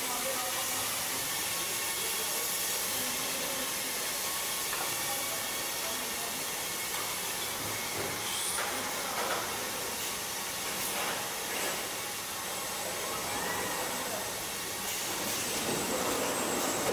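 Steady hissing machine noise of a robotic car-body assembly line, with a few faint clicks and knocks scattered through it.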